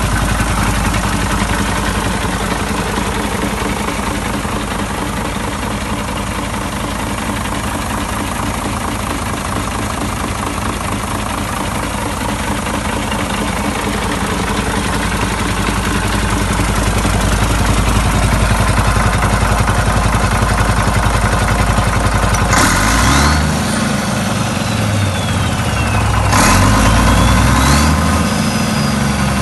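Doosan DE12TIS inline-six turbodiesel idling steadily, then speeding up twice in the last several seconds, its pitch rising and falling, with a high whine that sweeps down and back up.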